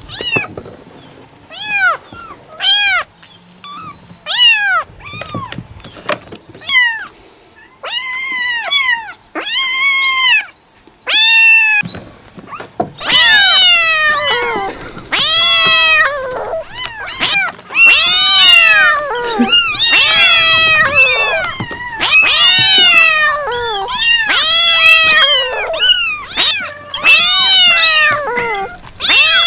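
Several cats meowing: separate meows with gaps at first, then from about halfway many meows overlapping in quick succession.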